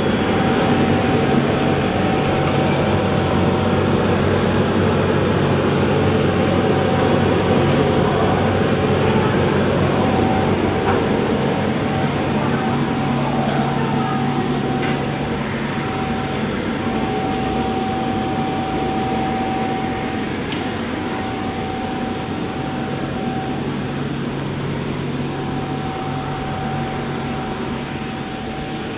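Electric inflator blower running steadily with a constant fan rush and hum as it blows air into an inflatable spray booth.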